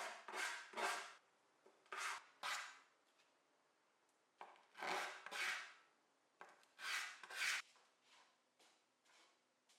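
Hand-sanding a small wooden segment: short scratchy rubbing strokes against sandpaper, mostly in quick pairs with pauses between, taking the fuzzy table-saw ends off the segment. The strokes grow faint near the end.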